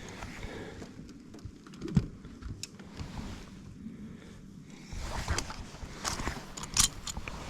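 Scattered clicks and knocks of handling on a boat, with one sharp thump about two seconds in and a run of clicks later on.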